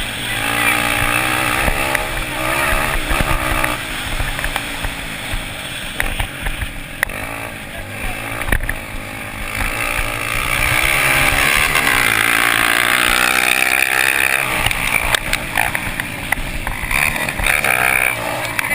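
Dirt bike engines revving up and down through the gears during a velocross race, loudest in a long run about ten seconds in.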